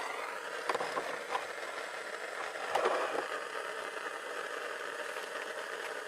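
Handheld gas torch flame hissing steadily, with a few light clicks and knocks of handling, most of them near the start and about three seconds in.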